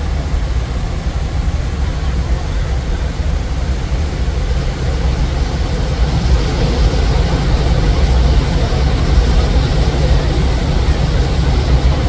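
Steady rushing water of a waterfall with a deep rumble beneath it, growing a little louder about halfway through.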